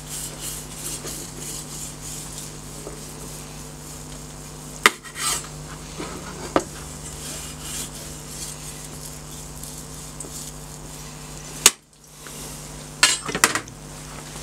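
Long carving knife slicing and scraping down the crispy outside of a smoked lamb doner kebab on its metal spike. A few sharp metallic clicks and knocks come as the blade touches the spike and base plate; the loudest is about three seconds before the end, and a short clatter follows as the knife is set down on the board.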